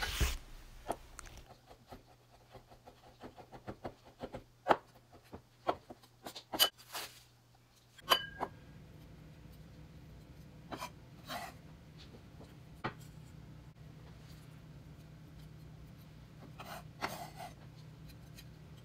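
A chef's knife chopping boiled egg whites on a wooden cutting board: quick, irregular knocks of the blade on the board. About halfway through the knocks thin out and a low steady hum comes in.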